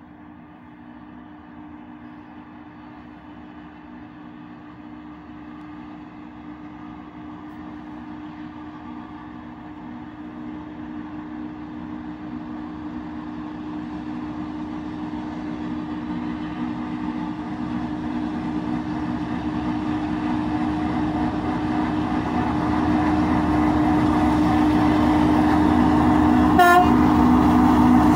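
Approaching 3TE10UK three-section diesel locomotive hauling a freight train: the steady drone of its two-stroke diesel engines grows gradually louder as it nears. A short sharp sound comes about a second and a half before the end.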